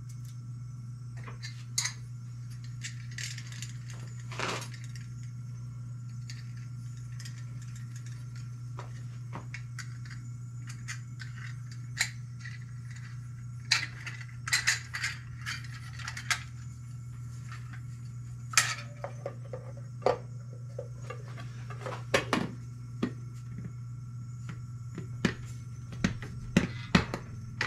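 Scattered clinks and clatter of small metal engine parts and hand tools being handled on a workbench, busier in the second half, over a steady low hum.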